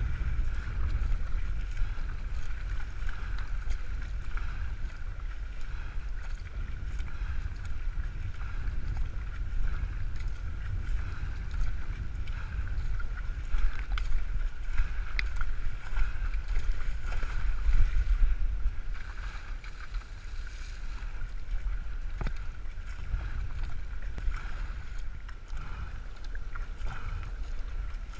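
A surfski paddled through wind-driven chop: water rushing and splashing along the hull, under a steady, fluctuating rumble of wind buffeting the boat-mounted camera's microphone.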